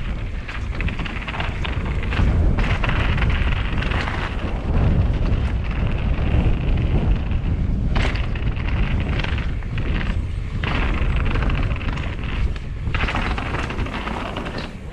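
Cannondale Jackal mountain bike riding down rock, heard on a body-mounted camera: wind buffeting the microphone over the rumble and rattle of tyres and frame on stone, with a sharp knock about halfway through.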